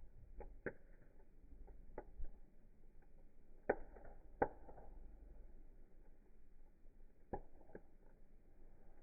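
Wood fire crackling: scattered sharp pops and snaps at irregular intervals, the two loudest a little under a second apart near the middle.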